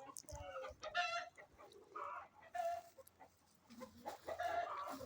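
Chickens clucking: a string of short pitched calls, with a longer call about four seconds in.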